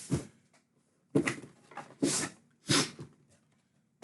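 Cardboard Elite Trainer Box being opened and handled: four or five brief scraping, rustling sounds about a second apart.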